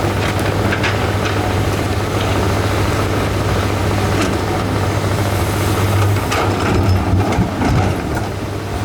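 Diesel engine of heavy construction equipment running steadily, with several short sharp knocks scattered through.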